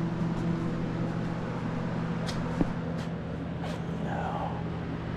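A steady low machine hum at several fixed pitches, with a few faint clicks and one sharp tick about two and a half seconds in.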